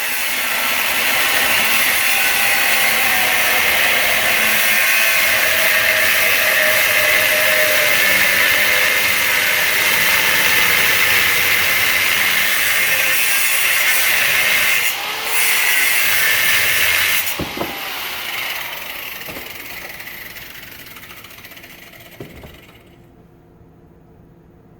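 Angle grinder with a cutoff wheel running loud and steady under load, with a brief dip partway through. About two-thirds of the way in it shuts off and the wheel winds down over several seconds.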